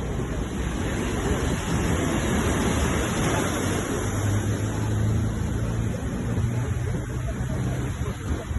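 Ocean surf: waves breaking and washing in a continuous rush that swells about two to four seconds in. A low steady hum runs under it through the middle.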